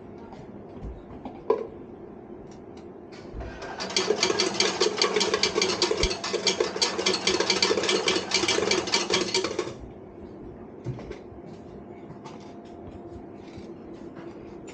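Bar slot machine playing its spin sound: a loud run of rapid, even ticking that starts about four seconds in, lasts about six seconds and stops abruptly, over a low background hum.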